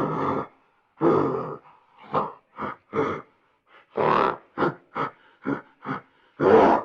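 An animal grunting again and again: about a dozen separate grunts, some long and some short, with a brief pause about halfway through.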